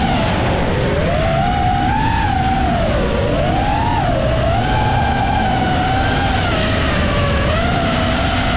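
FPV quadcopter's motors and propellers whining, the pitch swaying up and down as the throttle changes, over a steady low rumble.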